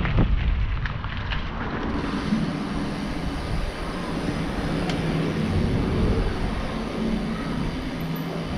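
Rolling noise from a slow-moving bicycle on concrete, heard from a camera on the bike. Wind rumbles on the microphone, heaviest in the first two seconds, then eases to a steadier noise.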